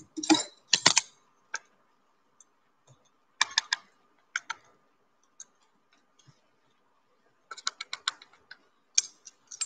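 Metal teaspoon clicking and scraping against the bowls while scooping talcum powder and tapping it out: irregular clusters of short sharp clicks with quiet gaps between.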